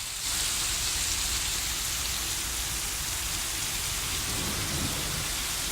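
Heavy thunderstorm rain pouring down in a steady hiss, which gets louder about a third of a second in and then holds.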